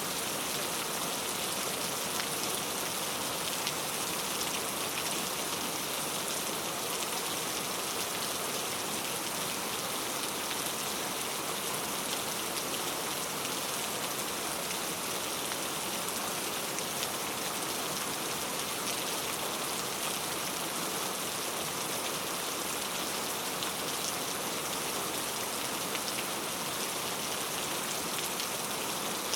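Steady rain falling, a continuous hiss of drops with fine scattered drop ticks.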